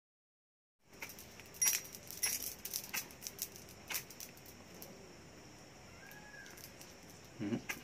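Beads of a cheap roadside imitation sphatik (crystal) mala clicking and scraping against each other as two are rubbed together for a spark test. The clicking starts about a second in, with a few sharper clicks in the first few seconds.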